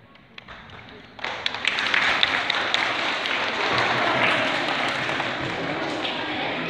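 Audience of schoolchildren applauding: a few scattered claps, then steady clapping that swells in about a second in and keeps going.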